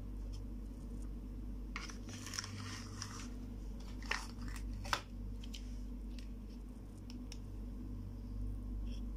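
Small plastic toy kitchen pieces being handled and set down on a cloth: a second or so of rustling, then a few sharp plastic clicks and lighter taps, over a steady low hum.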